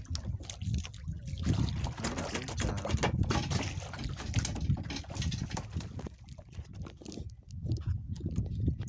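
Water lapping and splashing irregularly against a small fishing boat's hull, with a steady low rumble underneath.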